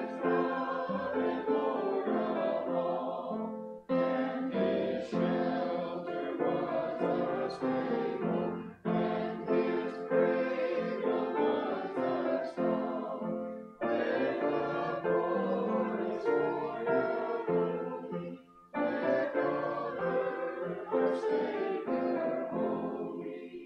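Small mixed choir singing with piano accompaniment, in phrases of about five seconds with short breaths between them, the last phrase tailing off at the end.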